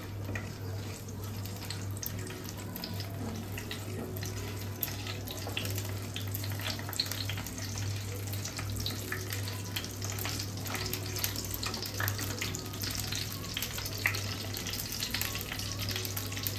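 Whole spices (bay leaves, dried red chillies, cloves, peppercorns, cardamom and cinnamon) crackling and sizzling as they fry in hot oil in a kadai while being stirred with a spatula: a tempering (phoron) frying. The crackles grow thicker in the second half, over a steady low hum.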